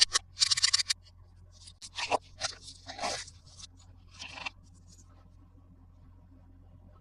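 Crisp rustling, scraping and snipping of toy packaging being opened by hand, in a quick run of short bursts that stops about four and a half seconds in.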